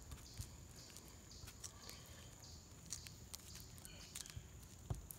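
Faint, irregular soft taps and clicks of a paintbrush dabbing and working wet fiberglass resin into fiberglass cloth.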